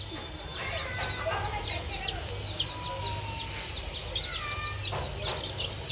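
A brood of young chicks peeping continuously, with many short, high-pitched cheeps overlapping. A low, steady hum runs underneath.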